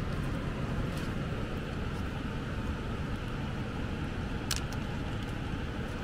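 Steady low rumbling background noise with a few faint clicks, the sharpest about four and a half seconds in.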